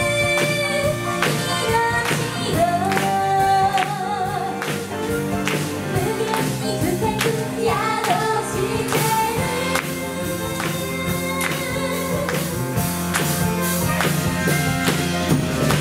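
Live pop band music with female vocalists singing the melody over drums, electric bass, electric guitar and saxophone, with a steady drum beat throughout.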